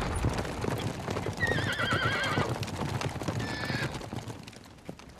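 Hooves of several horses clattering as a group rides off, with a long, wavering whinny about a second and a half in and a shorter neigh a little before the end. The hoofbeats fade away over the last second.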